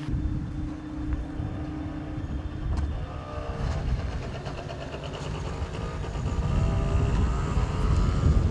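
Horror sound-design soundscape: a deep rumbling noise that cuts in abruptly and swells toward the end, with faint thin tones sliding upward above it from about three seconds in, then cuts off suddenly.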